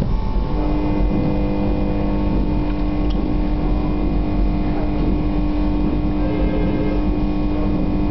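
Steady electrical hum of a hot bar soldering machine, made of several pitched tones, switching on about half a second in and holding steady. A constant low rumble runs underneath.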